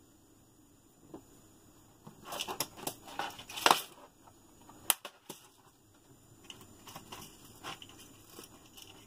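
Plastic parts packaging crinkling and rustling in the hands for a couple of seconds, then one sharp click and a scatter of lighter clicks and rustles as small tools and parts are handled.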